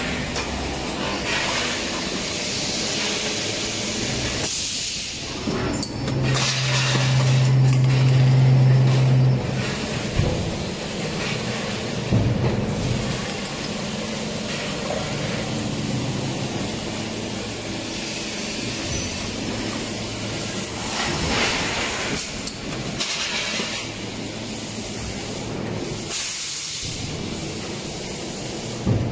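Injection moulding machine running a mould test of an eight-cavity PLA cup mould: a steady machine hiss and hum. About six seconds in, a louder low hum comes for some three seconds, and a few sharp clicks follow.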